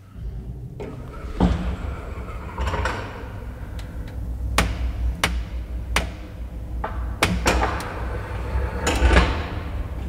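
Old lift car starting and travelling up: a steady low motor hum under a string of sharp knocks and clanks, about eight of them, spaced irregularly.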